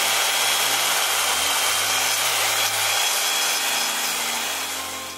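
Stihl MSE 140 C electric chainsaw running at full speed and cutting through the trunk of a freshly felled Christmas tree, a steady buzzing cut with a high whine. It fades out over the last second as the cut ends.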